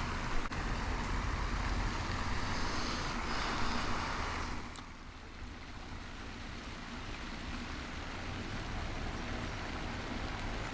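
Wind buffeting the microphone, a steady low rumble and hiss that eases off about halfway through.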